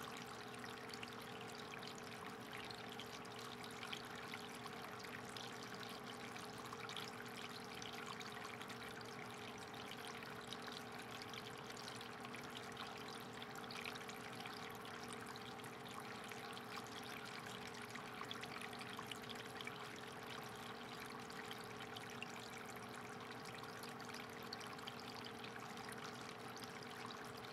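Aquarium water trickling steadily, with a steady hum underneath.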